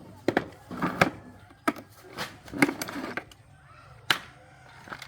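A series of sharp knocks and clanks of hard objects being handled, about five at uneven intervals; the loudest comes about four seconds in.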